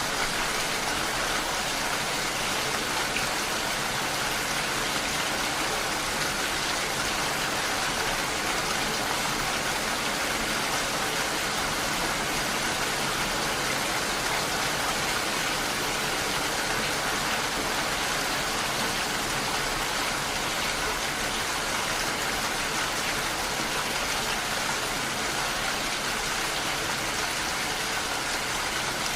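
Steady rain striking window glass: an even, unbroken hiss of many drops.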